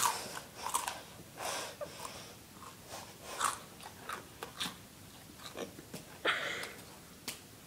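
A person chewing food noisily with the mouth open: an irregular run of short, wet chewing and lip noises.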